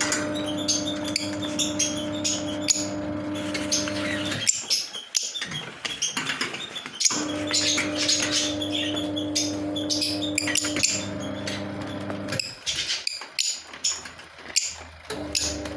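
Lovebirds chirping, many quick high chirps one after another. Underneath is a steady hum that cuts out twice and comes back.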